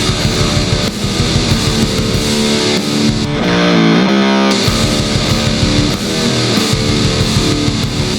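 Doom-metal instrumental at about 100 beats per minute: a distorted electric guitar riff over bass and drums, with a sliding pitch bend about halfway through.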